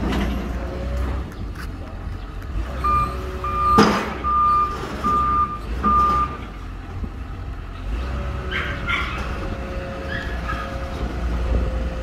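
XCMG XE215C crawler excavator's Isuzu diesel engine running steadily as the machine tracks up onto a lowboy trailer's ramps. Its travel alarm beeps about five times, around a third of the way in, and a single sharp knock, the loudest sound, comes about four seconds in.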